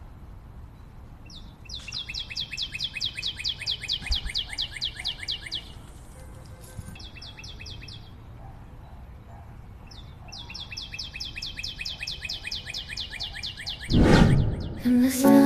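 A bird calling in long runs of rapid, evenly repeated high notes, about six a second, in three bursts with pauses between. Near the end, a loud whoosh is followed by music.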